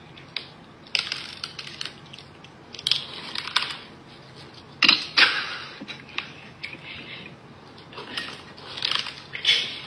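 Cat crunching mouthfuls of dry kibble from a bowl, in several bouts of crunching with short pauses between them.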